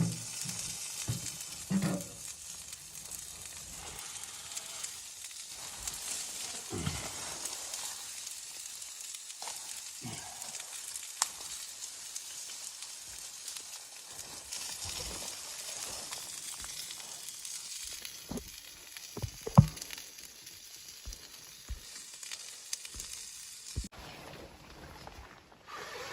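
A steady high hiss with scattered small clicks and knocks, and one sharp knock about two-thirds of the way through.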